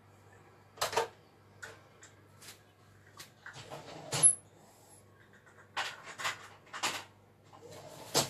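Kitchen handling clatter: a scattered run of knocks and clunks, the sharpest a little past the middle, over a low steady hum.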